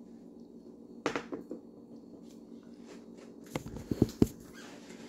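Handling noise while eating: a short clatter about a second in, then a few sharp knocks as the phone is moved, over a steady low hum.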